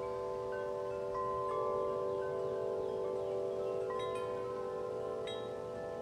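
A set of large tubular wind chimes (Corinthian Bells and Bells of Vienna) ringing in the breeze: long, overlapping low tones keep sounding while new strikes join every second or two. Brighter, higher strikes come about four seconds in and again near the end.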